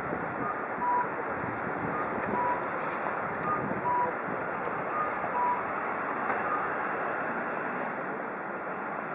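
Steady city street traffic noise, with a two-note electronic beep, high then low, repeating about every second and a half.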